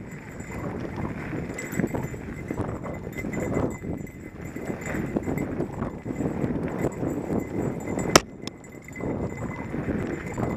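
Mountain bike rattling down a dry, rocky dirt singletrack: knobby tyres rolling and crunching over dirt and stones, with the bike jolting and rattling over bumps. A single sharp knock stands out about eight seconds in.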